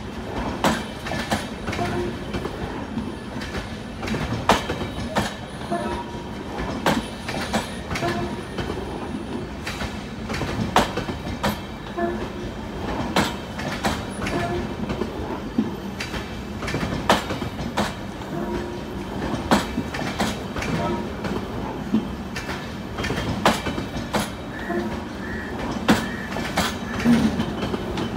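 LHB passenger coaches rolling past over rail joints and points: a steady rumble of wheels on rail, struck by many sharp, irregular clicks and clacks, with brief recurring squeals from the wheels.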